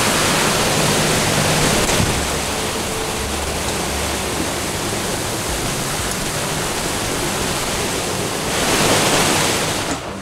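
Strong squall wind rushing across a rough sea, with rain and spray hissing on the water: a dense, steady roar of noise that swells with a gust near the end.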